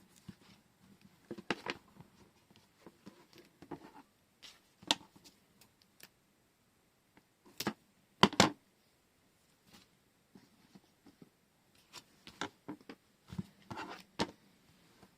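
Handling sounds from washi tape rolls and their packaging: scattered light taps, clicks and rustles, the loudest a pair of sharp taps about eight seconds in.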